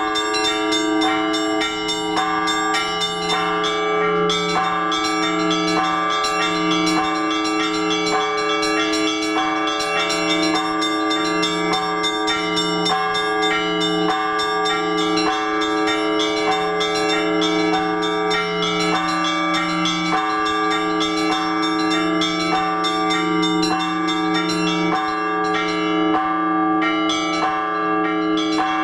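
Orthodox church bells rung together by hand: several bells of different pitch struck in a fast, even rhythm, a few strokes a second, over the steady hum of the larger bells.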